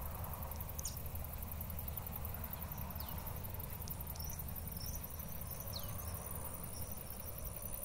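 Countryside insects trilling in a steady, high-pitched buzz, with a few short chirps and three brief, sharply falling bird calls. A low rumble sits underneath.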